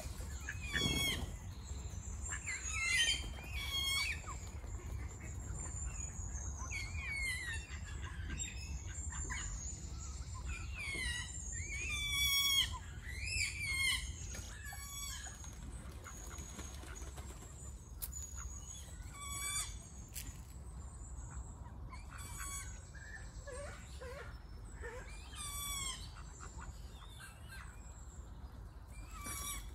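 Birds chirping and calling in many short phrases of quick rising and falling notes, thickest in the first half, over a steady low background rumble.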